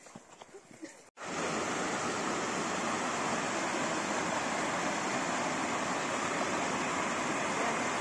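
Mountain stream rushing and splashing over rocks, a steady loud roar of water that cuts in abruptly about a second in.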